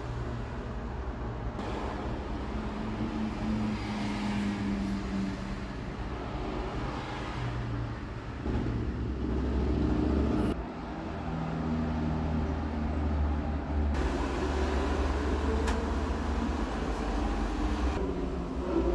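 Low, steady rumble of a running motor vehicle, heard across several clips joined with abrupt cuts.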